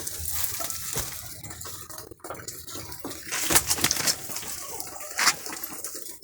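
Water splashing and trickling in uneven bursts, with the sharpest splashes a little past halfway and near the end.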